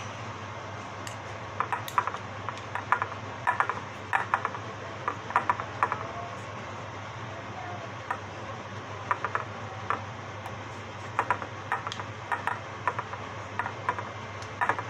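Metal spoons clicking and scraping against each other and the metal madeleine pan as batter is spooned into the shell moulds: irregular light clicks in small clusters, over a steady low hum.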